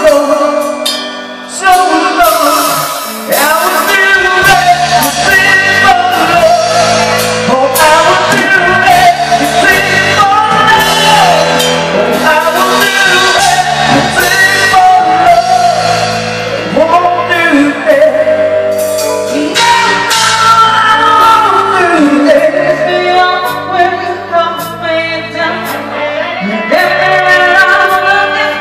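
Live band music: male and female voices singing over drums, bass and keyboards, amplified through a PA in a bar.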